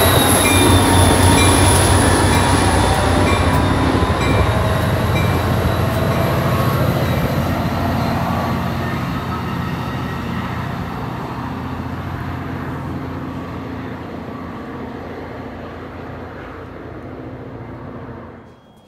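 Shore Line East passenger train pulling away: a rumble of wheels and running gear with a steady high whine on top, fading steadily, then cutting off sharply near the end.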